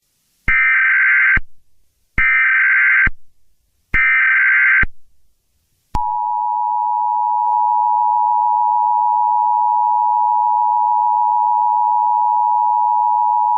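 Emergency Alert System tones: three short, screeching digital SAME header bursts, each a little under a second long, followed about a second later by the steady two-tone EAS attention signal (853 and 960 Hz) that holds unbroken.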